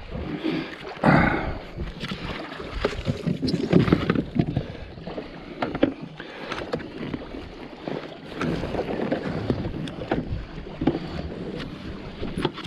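Irregular knocks and bumps on a Sea-Doo Fish Pro personal watercraft, with water lapping against its hull.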